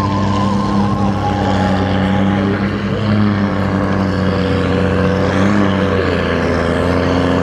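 Case IH tractor's diesel engine working hard under load as it pulls a weight-transfer sled, a steady drone that drops a little in pitch about six seconds in.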